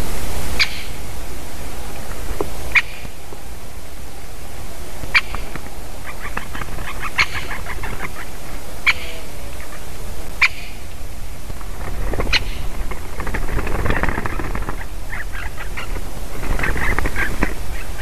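Great spotted woodpeckers calling in a fight: sharp single 'kik' calls about every two seconds, with two quick chattering runs, one around six seconds in and one near the end. A steady background hiss runs underneath.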